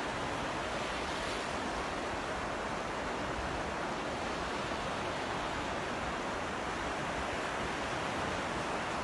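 Ocean surf washing on a beach: a steady, even roar of waves.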